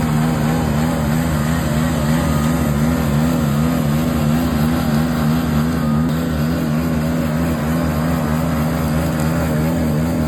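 Motorcycle engine running steadily while under way, its pitch wavering slightly.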